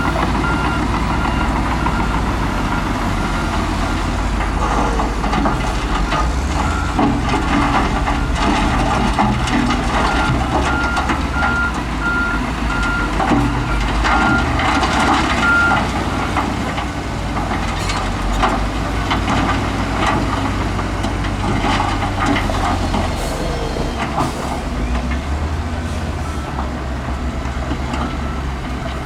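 Heavy diesel earthmoving machinery, a bulldozer and a wheel loader, running under load with a steady engine drone and clatter throughout. A reversing alarm beeps at the start and again for several seconds around the middle.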